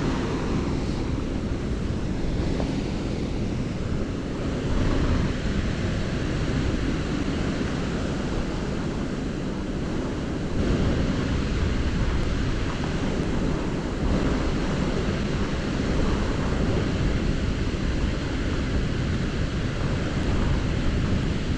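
Strong wind blowing across the microphone, a steady low rush with no distinct events.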